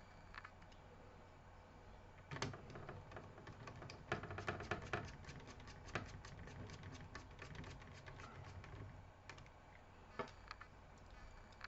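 Small screwdriver and screws clicking and rattling against a laptop's plastic case as screws are driven back in: a quick run of light clicks that thins out near the end.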